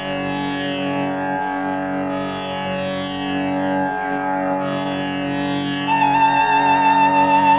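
Instrumental background music in an Indian classical style: plucked string notes over a steady drone. About six seconds in, a louder sustained melody with vibrato comes in.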